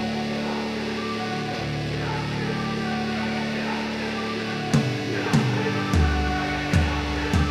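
Background music: a guitar-led instrumental track with held tones, joined by drum beats and a deep bass about two-thirds of the way through.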